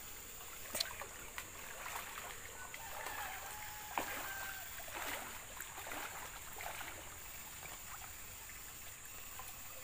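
Shallow stream water running and sloshing around the legs of someone wading through it, with a few sharp splashes.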